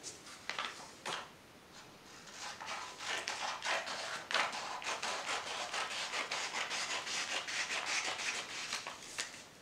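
Scissors cutting through two stacked sheets of paper: a couple of single snips early, then from about two and a half seconds in a long run of quick snips and paper rustle that stops just before the end.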